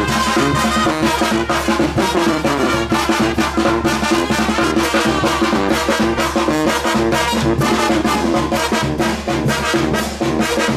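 Mexican banda brass band playing, with brass horns over drums keeping a steady beat.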